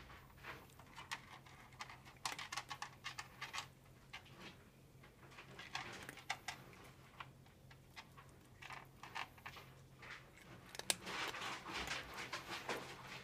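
A cat eating treats off the floor, chewing in short bursts of rapid crunchy clicks with quieter pauses between.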